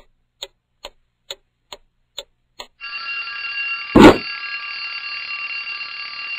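Cartoon alarm clock ticking about twice a second, then ringing steadily from just under three seconds in. A loud thump about four seconds in is the loudest sound.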